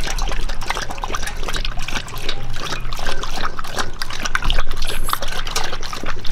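Two pit bulls lapping and slurping liquid from a stainless steel bowl: quick, wet laps and smacks, one after another.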